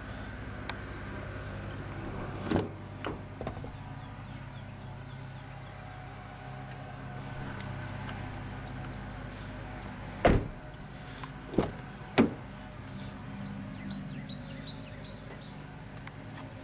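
Doors of a 2012 Toyota Prius being opened and handled: a few light knocks a couple of seconds in, then three sharp thuds from about ten to twelve seconds in, the first the loudest, over a steady low hum.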